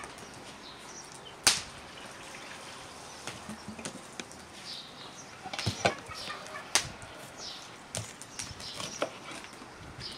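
Kitchen knife cutting a vegetable on a wooden cutting board, a series of irregular sharp knocks, the loudest about a second and a half in and a quick cluster around six seconds. Small birds chirp faintly throughout.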